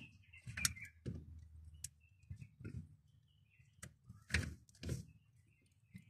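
Plastic steering-column switch and its wiring connector on a VW Golf Mk5 being handled and pushed into place: a few faint, irregular clicks and rattles, the loudest about four and a half seconds in, as the parts click home.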